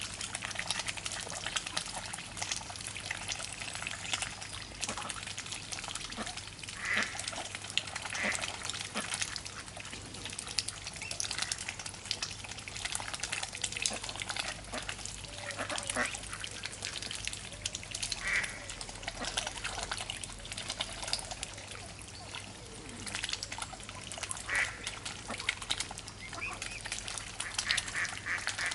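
Mute swans and mallards dabbling and pecking at feed on the water surface, a dense rapid clatter of bills and splashes, with a few short calls now and then.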